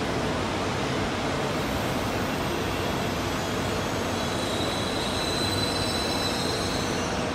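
E653 series electric limited-express train creeping slowly along the platform: a steady rumble of the cars, with a high thin whine that comes in a couple of seconds in and fades near the end.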